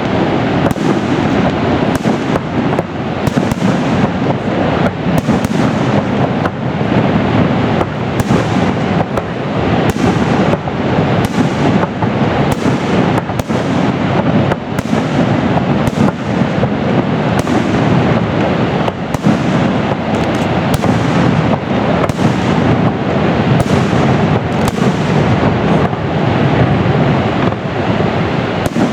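A fireworks display going off in rapid succession: many bangs and crackles a second, merging into a dense, continuous rumble with no pauses.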